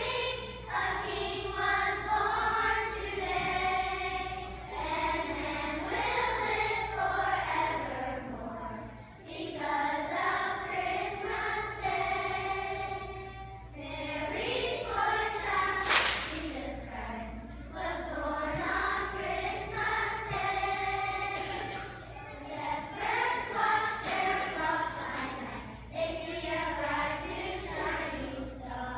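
Children's choir singing a Christmas song, the voices holding and sliding between sustained notes. There is a single sharp knock about halfway through.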